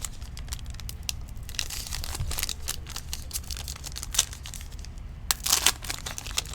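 Trading-card pack wrapper crinkling and tearing as it is handled and ripped open, with cards rustling and clicking, and a louder rustle about five seconds in.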